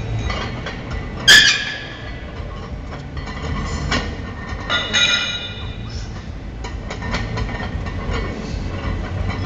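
Barbell and iron weight plates clanking in a gym: one sharp ringing clank about a second in and another ringing clink around five seconds, with small knocks over a steady low background rumble.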